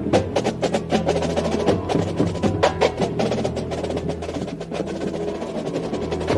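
Marching band music led by percussion: rapid sharp strikes over held low tones.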